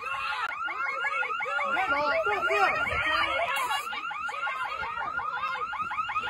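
Electronic alarm sounding continuously: a rapid warbling siren of chirps that sweep up and down, several times a second.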